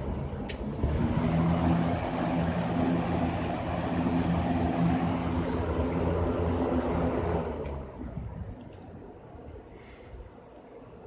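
Lakewood S-238 box fan with a 1975 Westinghouse motor running: a click, then a steady motor hum and rush of air from about a second in. About eight seconds in it drops away to a much quieter level, with a few clicks.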